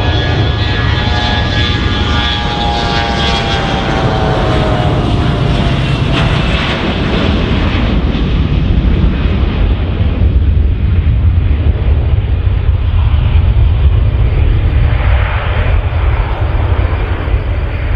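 The twin rear-mounted turbofans of a Bombardier CRJ900 regional jet at takeoff thrust as it races down the runway and lifts off. A high engine whine falls in pitch as it passes in the first few seconds, then a deep rumble of jet noise builds and peaks about three quarters of the way through.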